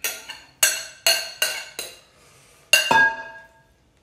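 Glass jar clinking against a ceramic mixing bowl as dried fruit is tipped out of it: a run of sharp clinks, about two or three a second. Near the end comes a single louder glass clink that rings for about a second.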